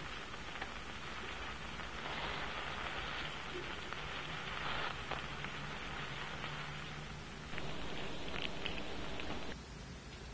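Onions, mushrooms and chopped garlic sizzling in oil in a frying pan: a steady crackling sizzle with a few sharp pops near the end. It drops away suddenly about nine and a half seconds in.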